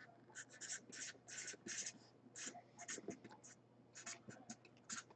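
Faint pen strokes scratching on paper: short, irregular strokes in quick runs.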